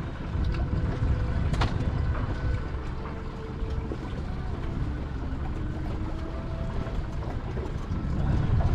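Wind buffeting the microphone as a low, uneven rumble, with one sharp click about one and a half seconds in.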